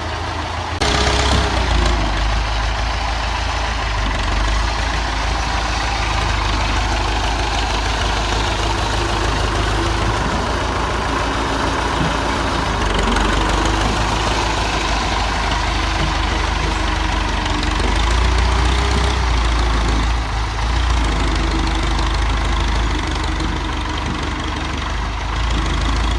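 Tractor engine running under load, its pitch rising and falling as it works. It gets louder suddenly about a second in.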